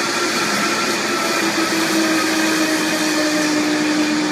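Countertop blender running on a low speed while hot melted butter is poured in to emulsify egg yolks into hollandaise sauce. The steady motor whine sags slightly in pitch as it goes.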